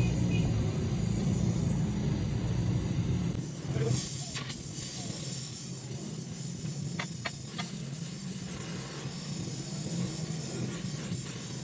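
Gas welding torch flame hissing steadily while filler rod is melted into a broken alloy wheel rim. The hiss is stronger for the first few seconds, then softer, with a few faint ticks about seven seconds in.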